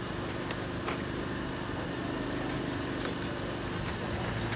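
A steady low mechanical hum, several even tones held throughout, over faint outdoor background noise with a few soft clicks.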